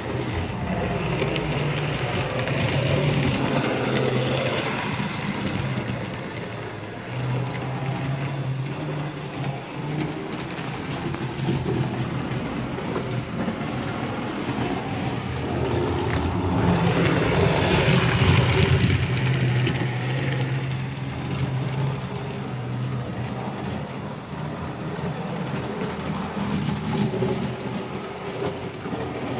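HO-scale model train running on the layout: a steady electric-motor hum with the wheels rolling on the rails, swelling louder for a few seconds a little past halfway, then easing back.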